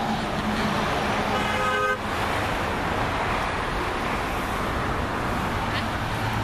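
Steady road traffic noise from passing cars, with a short car horn toot about a second and a half in that cuts off abruptly.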